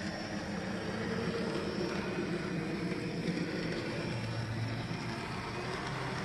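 AZL Z-scale GP38-2 model locomotive running on track: the steady whir of its small electric motor and drive, with the wheels rolling on the rails.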